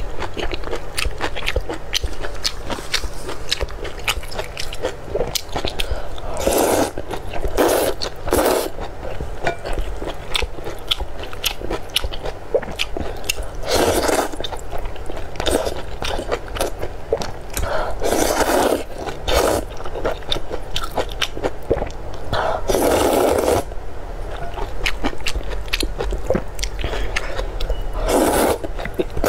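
Close-miked eating of glass noodles in sauce: wet chewing with many small clicks and smacks, broken several times by longer slurps as strands are sucked in.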